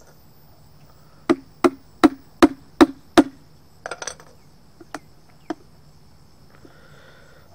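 A hammer striking six times in quick succession, about two or three blows a second, working at the plastic lid of a new paint can with a screwdriver, followed by a few lighter clicks and taps. Crickets chirp steadily in the background.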